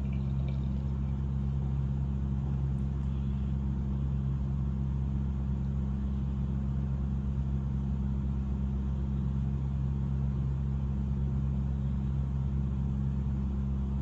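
Steady low mechanical hum of a through-wall hotel-room air-conditioner unit running, made of a few constant low tones. Beer pouring from a can into a glass and fizzing sounds faint beneath it.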